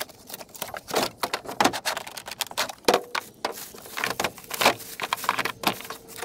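Clicks, knocks and clatter of a hard plastic band saw carrying case being pulled from its cardboard box and opened: a rapid, irregular run of sharp handling sounds.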